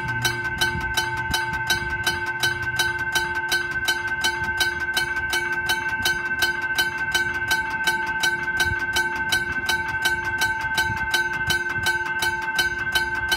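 Teardrop-type railway level crossing bell ringing continuously. It strikes in rapid, even strokes, about three a second, each stroke ringing on with steady tones, the sign that the crossing is active for an approaching train.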